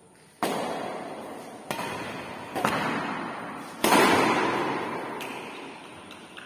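Badminton rackets striking a shuttlecock in a rally: four sharp hits about a second apart, each ringing on in the echo of a large bare hall, the fourth the loudest. A fainter tap follows about five seconds in.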